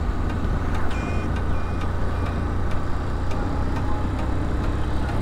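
Motorcycle riding at low road speed: steady wind rush and buffeting on the rider's microphone over the engine running. A few brief high chirps are heard about a second in and again a little later.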